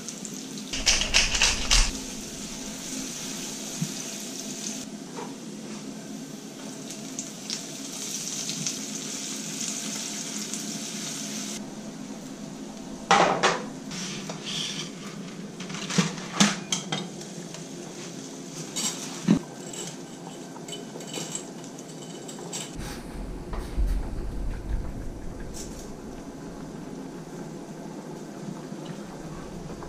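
Minced garlic frying in olive oil in a skillet, a steady sizzle that is strongest through the first half, with scattered clinks and clatters of pans and utensils.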